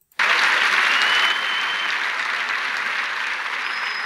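Studio audience applauding, setting in suddenly and holding steady, with a brief high tone about a second in.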